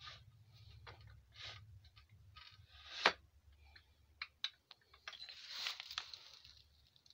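Light clicks and scrapes of metal parts being handled on a home-built metal lathe, with one sharper click about three seconds in.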